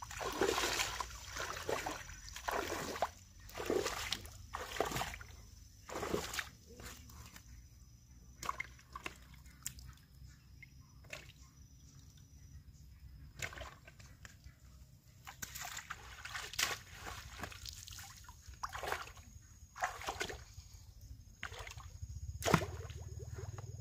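Shallow pond water sloshing and splashing in irregular bursts as a person wades through it and sweeps a dip net. There is one sharp knock near the end.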